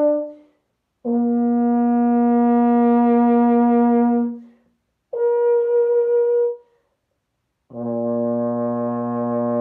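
Solo euphonium playing a slow melody in long held notes, with short silent breaths between them. The last note, which starts near the end, is the lowest.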